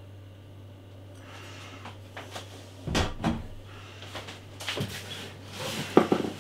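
Beer bottles and packaging being handled and set down on a tabletop: rustling, a pair of knocks about three seconds in, and a cluster of sharper knocks near the end, over a low steady hum.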